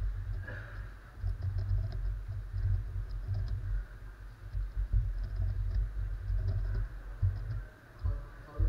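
Magnetic X-Man Galaxy Sculpted megaminx being turned fast in a speedsolve: quick, irregular plastic clicking and clacking of the faces, over a low, uneven rumble of handling knocks.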